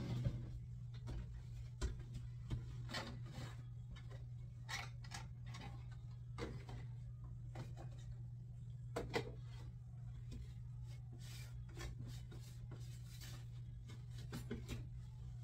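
Small objects being handled and set down: scattered light clicks, knocks and rubbing, as dolls and toys are taken off and sorted, over a steady low hum.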